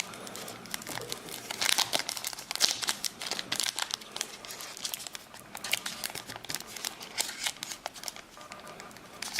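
Crinkling of a trading card pack's wrapper as fingers work at it, trying to tear it open without success, in a series of irregular crackles.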